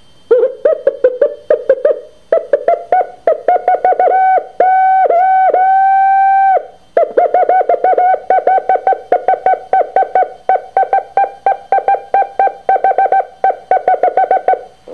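Electronic soundtrack of short pitched beeps pulsing about five times a second, broken by a longer held tone for about two seconds in the middle.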